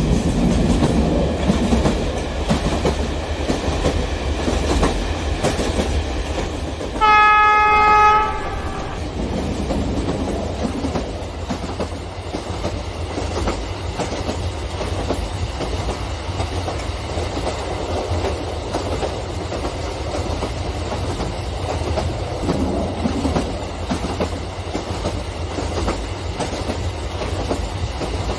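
Model trains running on parallel tracks, with a steady rumble and clickety-clack of wheels and motors. About seven seconds in, a locomotive sounds a single horn blast of about a second, the loudest thing heard.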